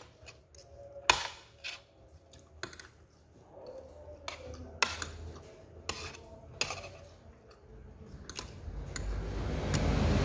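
Metal spoon and fork clinking and scraping against a plate as they gather cooked cassava leaves, in separate sharp clinks; the loudest comes about a second in. Near the end a rushing noise builds up steadily.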